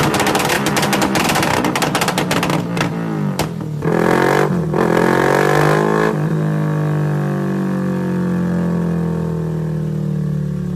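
Yamaha Y15ZR (Exciter 150 / MX King 150) 150cc single-cylinder engine with a modified exhaust, revved hard in rapid stuttering pulses. It eases off about three seconds in, revs again for about two seconds, then drops back to a steady idle.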